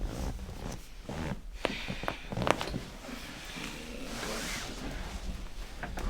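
A quick run of sharp cracks between about one and a half and two and a half seconds in, the last one loudest, amid rustling of clothing and the treatment table: spinal joints popping under a chiropractic adjustment.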